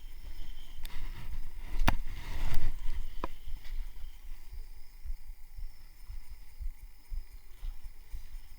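Wind buffeting the microphone in an uneven rumble, with two sharp clicks about two and three seconds in and a brief rush of noise between them.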